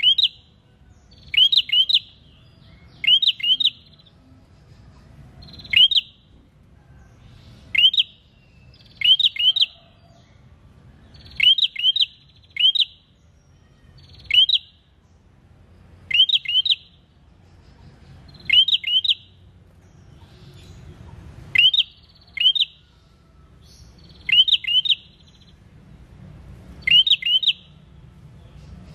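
A caged prenjak calling loudly and steadily. Each call is a quick group of one to three sharp chirps that sweep upward in pitch, repeated every second or two.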